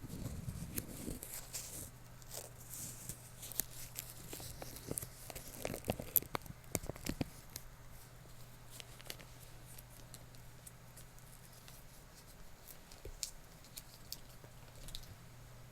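Light handling sounds close to the microphone: scattered taps, scratches and rustles, busy through about the first seven seconds and sparser after, over a faint steady low hum.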